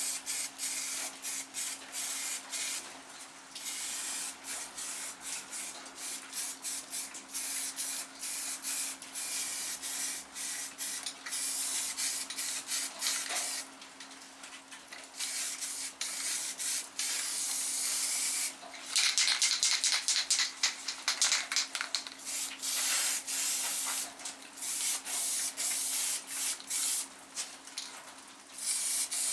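Aerosol spray can of primer hissing in many short spurts, stopping and starting, over a steady low hum. A run of rapid clicks comes about two-thirds of the way through.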